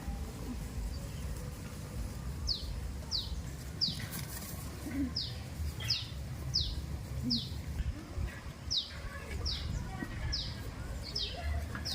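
A bird calling a series of short, high chirps, each dropping quickly in pitch, repeated about one to two times a second from a couple of seconds in. Underneath is a steady low rumbling background noise.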